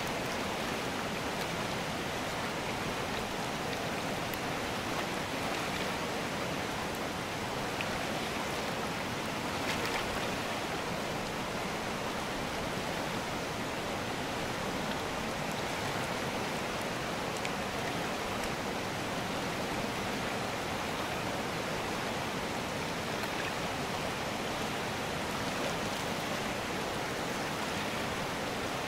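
Fast mountain river rushing over rapids and a stony bed: a steady, even roar of water.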